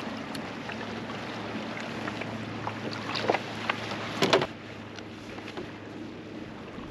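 Fishing reel winding in a hooked largemouth bass beside a kayak, a steady whir with a few sharp knocks and splashes as the fish thrashes. The winding stops with a cluster of knocks about four seconds in as the bass is lifted out of the water, leaving only light wind and water.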